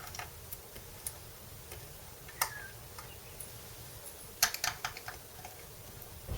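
Light clicks and taps of a screwdriver and small screws working on guitar hardware. They come scattered, with one sharp click about two and a half seconds in and a quick flurry of clicks around four and a half seconds.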